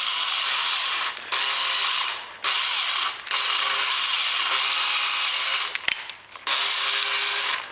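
Electric hand drill running in several bursts of one to two seconds with short breaks, as its chuck is opened and tightened on a step drill bit.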